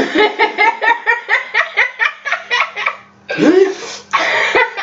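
A woman laughing hard: quick, evenly repeated 'ha' pulses, about five a second, for some three seconds, then two long breathy gasps of laughter.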